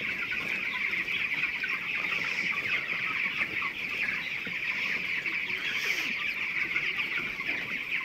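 A flock of about 3,000 twenty-day-old broiler chickens peeping and clucking in a steady chorus of many overlapping high calls.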